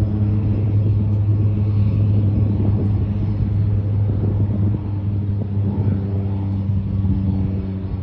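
Floatplane engine and propeller running steadily with a deep, even drone that slowly fades toward the end.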